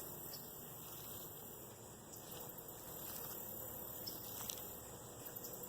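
Faint steady hiss of background noise in a home voice recording, with a few faint ticks.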